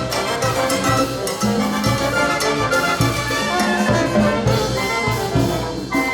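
Peruvian cumbia played by a brass band: trumpets and trombones carry the melody over a steady bass and percussion beat.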